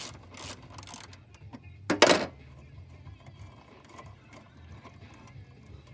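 Hand-tool work on a car's front suspension: a few quick rasping strokes like a ratchet wrench, then one loud metallic clank about two seconds in, followed by light clicks and taps.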